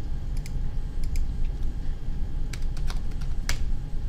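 Computer keyboard and mouse clicks: about ten separate, irregular clicks, the sharpest about three and a half seconds in, over a steady low hum.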